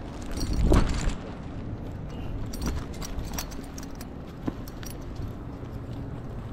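Light metallic jingling and clicking, like keys or tags, over steady outdoor background noise, with a louder low rush lasting about half a second near the start.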